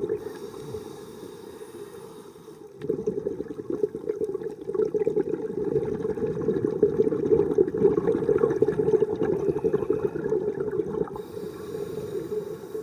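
Underwater bubbling and gurgling of a scuba diver's exhaled air, muffled and low. It grows louder about three seconds in.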